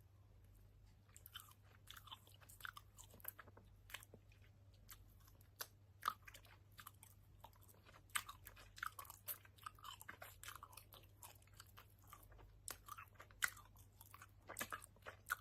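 Close-up mouth sounds of someone chewing a sweet with a strawberry-orange filling: faint, irregular wet smacks and sticky clicks, several a second, over a low steady hum.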